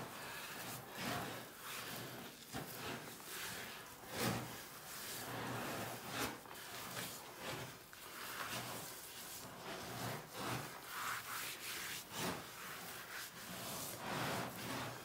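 Repeated rubbing and scraping strokes as raw pork for culatello is worked by hand.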